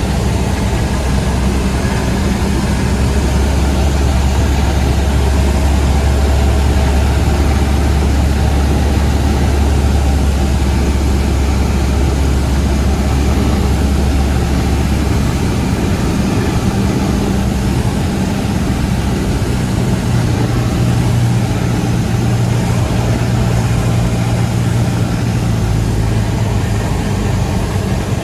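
Cessna 172's four-cylinder piston engine and propeller droning steadily in flight. Its low note changes about halfway through.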